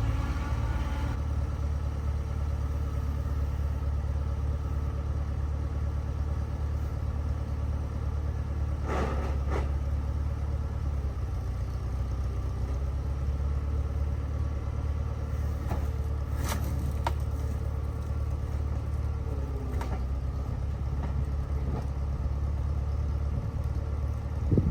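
Engine of heavy equipment running steadily, with a few sharp metal clanks as scrap cars are handled, the loudest about a third of the way in and past the middle.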